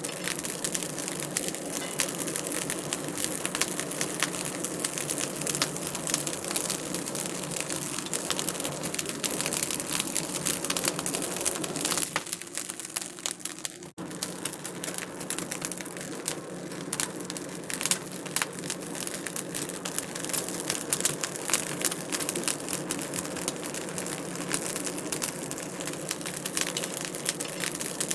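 Wood fire crackling in a fireplace: a dense, steady stream of small pops and snaps. About halfway through, the crackle thins for a couple of seconds and then drops out for an instant.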